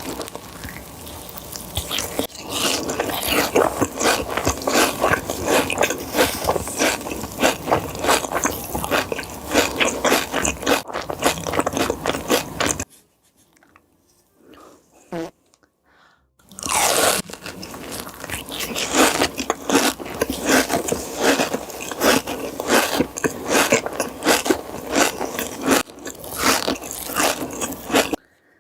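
A person biting and chewing crunchy food in rapid, dense crunches, stopping for a few seconds about halfway through before the crunching starts again.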